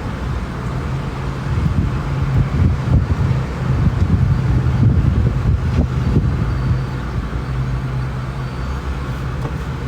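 Steady low rumble of road traffic, with a held engine hum that swells for a few seconds mid-way.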